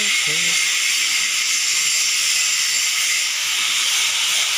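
Shielded metal arc (stick) welding arcs giving a steady, high hiss.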